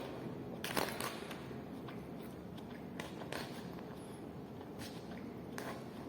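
Eating sounds: a few scattered light clicks and taps over a steady low hum, with a small cluster about a second in and single ones later.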